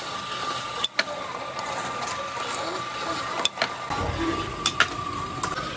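An oil filter seaming machine running with a steady whine, with a few sharp metallic clicks and knocks as the housing is worked. A lower rumble comes in about four seconds in.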